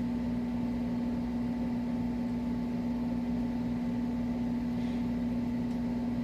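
Steady mechanical hum with one strong, unchanging pitched tone, like a motor or fan running.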